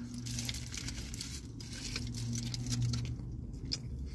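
A person biting into and chewing a burger held in crinkling aluminium foil, with small crackling clicks. A low steady hum runs under it for about the first three seconds, then fades.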